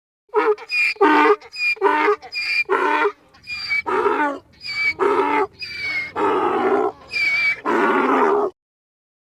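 An animal calling again and again: about a dozen loud, rough calls in quick succession, each lasting under a second, with short gaps between them.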